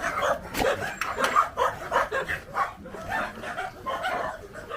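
Several dogs barking and yipping in quick, overlapping bursts, excited at being fed.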